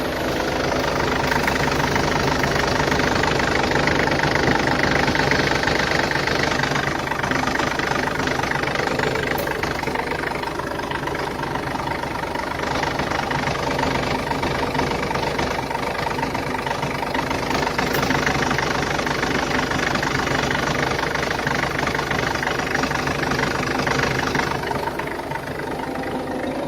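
Mercedes Vito 2.2 CDI's OM611 four-cylinder common-rail diesel engine running steadily. It grows louder and busier for the first several seconds and again from about 17 to 24 seconds in, and settles back to a lower idle in between and near the end.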